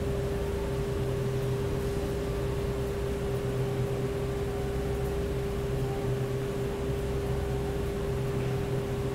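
Steady mechanical hum with a constant mid-pitched tone over an even low rumble.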